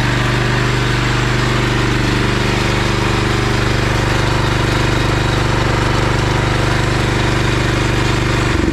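Honda GX390 single-cylinder four-stroke petrol engine on a generator running steadily at its governed speed. Near the end its pitch drops and the firing slows as the engine winds down.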